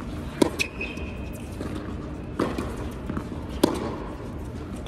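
Tennis rally on an indoor hard court: sharp pops of racquets striking the ball and the ball bouncing, a second or two apart, the loudest hits about half a second in and again near the end. A brief high squeak follows the first hit.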